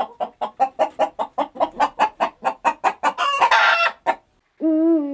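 Chicken clucking rapidly, about five clucks a second, then one loud harsh squawk lasting about a second. Near the end a low, steady hoot of a Eurasian eagle-owl begins.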